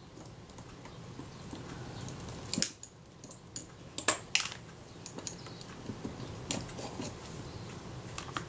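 Small metallic clicks and light scraping as a screwdriver works the screws of a Kodak Retina IIIc's top cover and the cover is lifted off. A few sharp clicks stand out, the clearest about two and a half and four seconds in.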